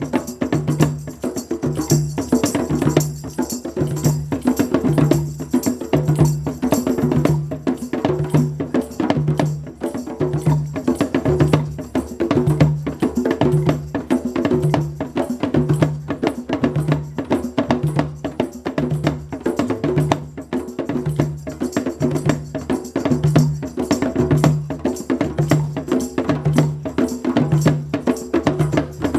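Live music: dense clicking and rattling hand percussion over a steady low tone that pulses a little more than once a second.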